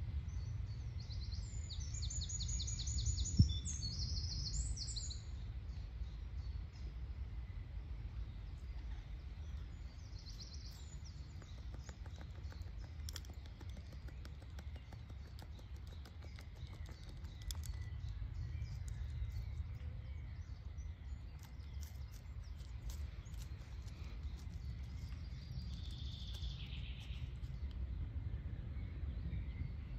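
Woodland songbirds singing short, high trilled phrases every several seconds over a low steady rumble. A single sharp click a little over three seconds in is the loudest sound.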